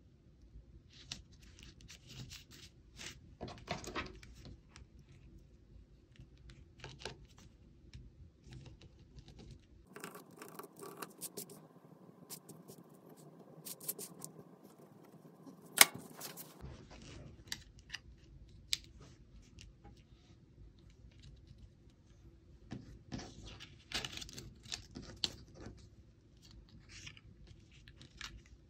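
Paper-craft handling sounds: card and cardstock scraping, rustling and tapping on a cutting mat, with a bone folder rubbing over an embossed cardstock panel midway through. One sharp click just past halfway is the loudest sound.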